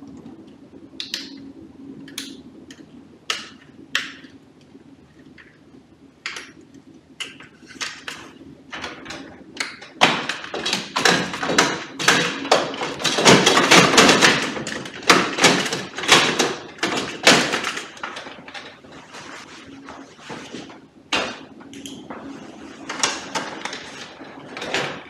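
Plastic and metal clicks and knocks from a copier's fuser (fixing) assembly being connected and slid into its slot. There is a busier, louder stretch of rattling and knocking in the middle as the unit is pushed home.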